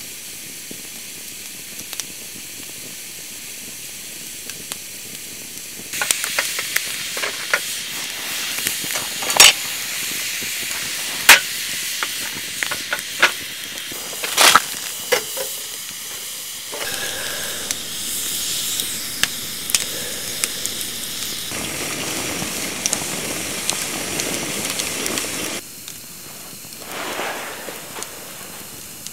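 Wood fire burning in a small fire pit: a steady hiss with crackling, and a few loud, sharp pops of the burning logs between about six and fifteen seconds in.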